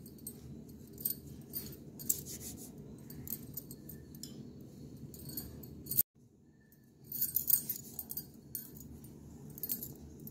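Small packet of wicks crinkling and rustling in short bursts as the wicks are handled and pulled out, over a steady low hum. The sound cuts out briefly about six seconds in.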